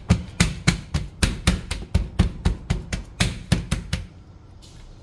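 Hands patting paper towels down over fish fillets on a stainless steel tray to blot off moisture: quick, even slaps at about four a second that stop about four seconds in.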